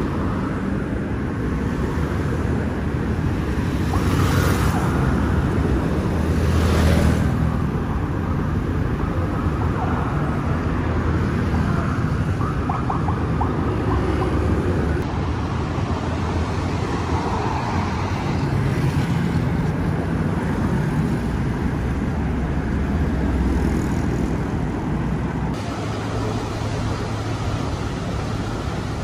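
Road traffic: the steady rumble of car engines and tyres, with two cars passing close and louder about four and seven seconds in.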